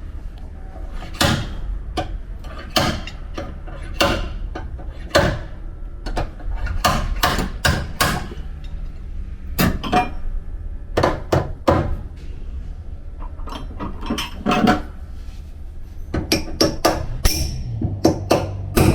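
Body hammer striking a Toyota Sienta's sheet-steel panel during dent repair: sharp metallic blows at an uneven pace, coming in quicker runs near the end. Background music plays beneath.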